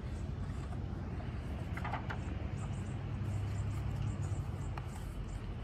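Low, steady engine rumble of a motor vehicle, swelling about three to four seconds in. A short higher-pitched sound comes about two seconds in.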